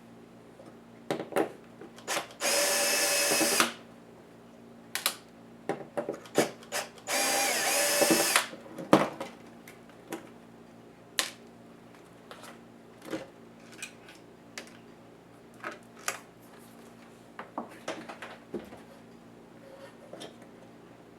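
Small electric screwdriver whirring in two bursts of about a second each, backing screws out of a laptop during disassembly, with scattered clicks and taps of tools and small plastic and metal parts being handled between the bursts.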